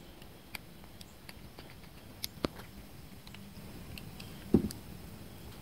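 Faint clicks and light handling noises from small metal and plastic parts of a hedge-clipper diaphragm carburetor being fitted back together by hand, with one louder knock about four and a half seconds in.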